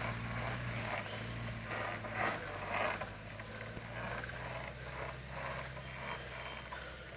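Ford Ranger pickup's engine running with a low, steady hum that eases about a second in, under irregular creaking and rattling.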